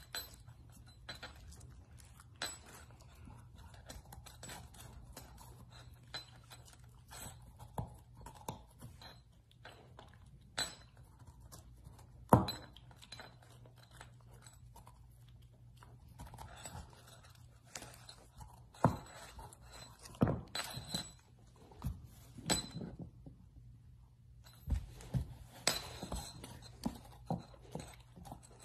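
Black Labrador puppy chewing a raw carrot: irregular sharp crunches and clicks, the loudest about twelve seconds in, over a faint steady low hum.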